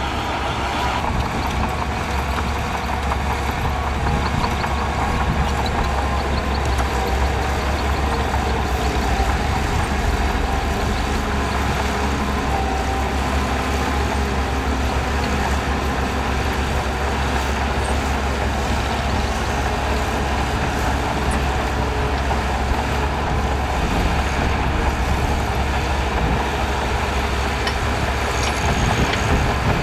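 Heavy diesel earthmoving machinery running steadily, with a strong low engine note.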